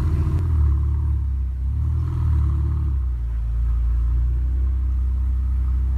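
Ferrari sports car's V8 engine running at low speed as the car creeps along, a steady low rumble with small rises and falls in revs near the start and about two seconds in.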